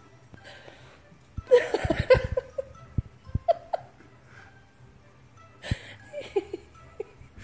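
A person laughing in bursts, loudest about a second and a half in and again near six seconds, with a few short squeaks in between.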